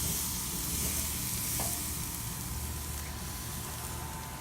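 Steady sizzling hiss from a charcoal smoker, its coals topped with water-soaked apple wood chips and a spatchcocked chicken on the grate.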